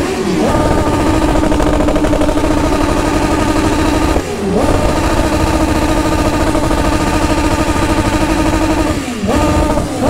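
BMW S1000RR inline-four sportbike engine, running without an exhaust silencer, pulling at steady high revs while riding. Three times the revs drop sharply and climb straight back: about half a second in, at about four seconds, and near the end.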